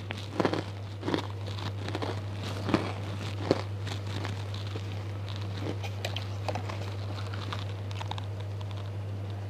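Crisp crackers (kerupuk) being bitten and chewed: a few sharp crunches in the first few seconds, then quieter chewing. A steady low electrical hum runs underneath.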